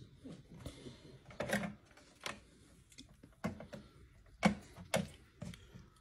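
A few faint, scattered clicks and knocks of hands handling a black rotary dial telephone.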